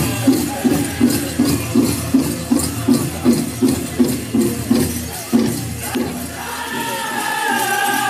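Powwow drum beaten in a steady even beat of about three strokes a second, which stops about five and a half seconds in. High-pitched singing then starts near the end.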